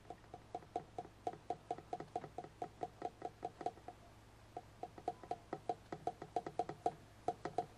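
Fingers drumming on a hard card box: a quick, even run of light pitched knocks, about five a second, breaking off briefly about four seconds in and then picking up again.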